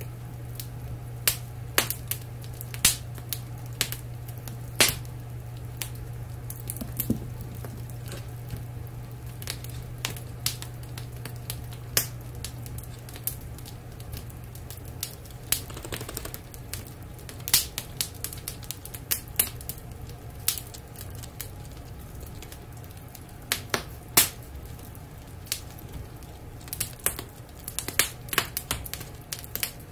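Wood fire crackling in a wood stove, with irregular sharp pops, over a steady low hum.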